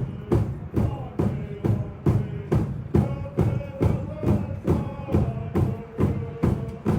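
A drum beaten in a steady, even beat, about two strikes a second, as a closing drum song; from about three seconds in, a voice sings long, sliding notes over it.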